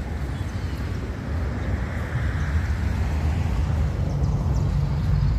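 Road traffic: a motor vehicle passing close by, its engine rumble and tyre noise swelling, with the engine note loudest near the end.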